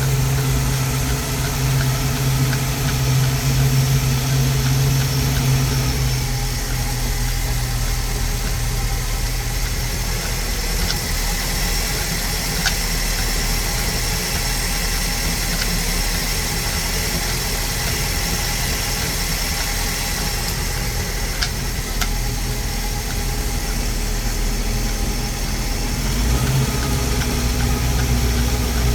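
MerCruiser 5.7L V8 sterndrive engine running steadily, with a noise that the owner asks may be rod knock. Its note changes about seven seconds in and again near the end.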